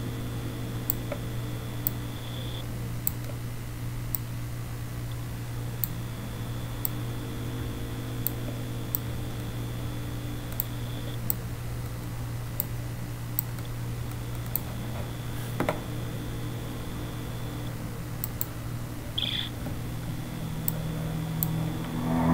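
A steady low hum with small faint ticks about once a second and a faint high tone that comes and goes.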